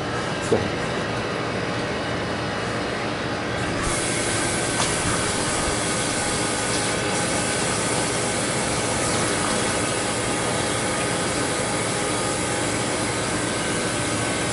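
Steady hum and rush of a beverage cooler's refrigeration condensing unit running. About four seconds in, a louder, higher hiss joins and carries on.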